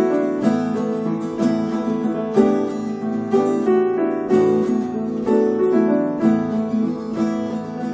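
Instrumental break in a folk ballad: acoustic guitar picking and strumming with a keyboard, no singing.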